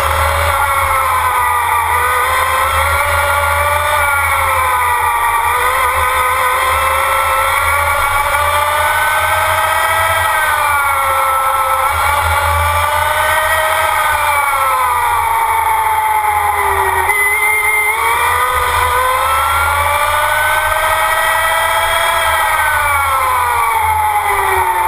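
Onboard sound of the SGT FE11 Formula Student electric race car: a high-pitched drive whine that rises and falls again and again as the car speeds up and slows for corners, over a low rumble of wind and tyres. The pitch drops deepest at about seventeen seconds and near the end.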